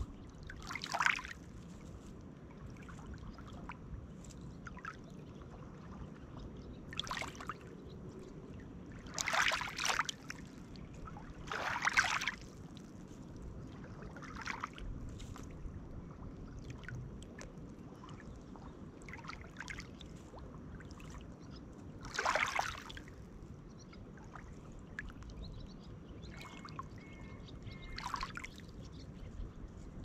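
Small lake waves lapping on a pebble shore: a steady low wash with an uneven splash every few seconds as a wave breaks over the stones.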